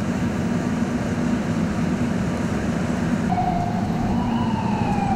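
Steady city street noise with a low hum. About three seconds in, an emergency vehicle siren comes in with a single wailing tone that rises briefly and then slowly falls.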